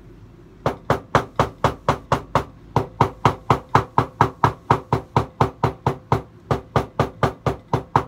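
A hammer tapping a leather jacket's sleeve hem, about four quick strikes a second with one short break, to flatten leather that is bent and not lying flat.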